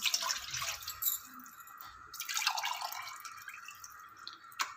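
Water poured from a large mug into a nonstick wok, splashing onto the pan's bottom in two pours, the first at the start and the second about two seconds in; a single sharp click near the end.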